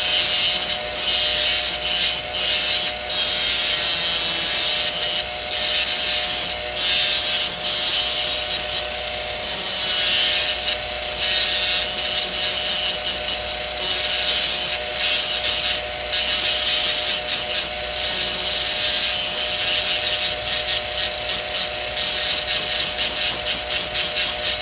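Dental straight handpiece spinning a thin separating disc that grinds against a gold three-unit bridge: a steady motor whine under a hissing scrape, with many brief breaks. The disc is cutting away excess gold left from the sprue on the pontic to restore normal contour.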